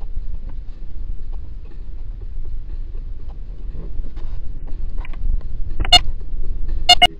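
Low road and engine rumble inside a moving car, with a car horn honked once near the end and then twice in quick succession.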